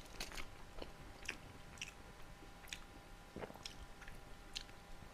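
A person chewing a mouthful of food close to the microphone: irregular soft wet clicks of the mouth and jaw.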